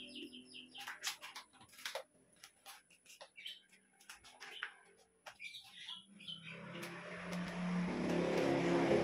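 Light clicks and knocks of metal tube poles and plastic shelves being handled and fitted together while a shoe rack is assembled, with small bird chirps among them. In the last few seconds a louder steady rushing noise with a low hum builds up and covers them.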